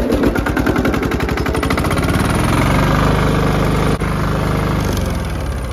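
Small petrol engine of a pressure washer, started on its electric starter after the wiring was reconnected, running with a rapid, even firing beat and a steady hum. It fades away near the end.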